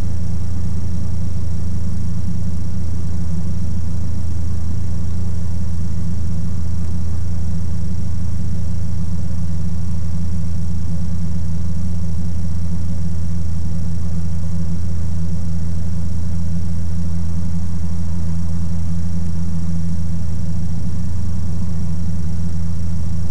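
Ikarus C42 microlight's engine and propeller droning steadily in cruise flight, heard from inside the cockpit. A faint steady high tone sits above the drone.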